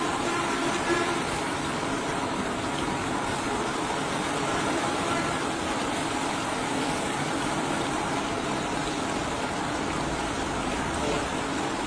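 Large steel karahi of chicken curry boiling hard over a burner: a steady bubbling hiss.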